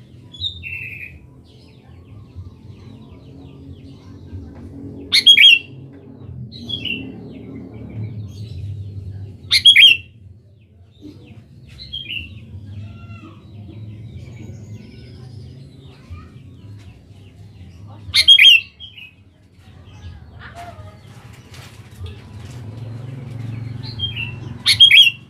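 Sooty-headed bulbul calling: four loud, short phrases several seconds apart, with softer chirps between them, over a steady low rumble.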